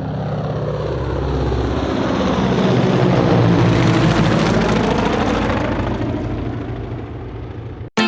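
Helicopter flying past: the rotor chop and engine noise grow louder to a peak about three and a half seconds in, then fade away as the pitch slides down. It cuts off suddenly near the end.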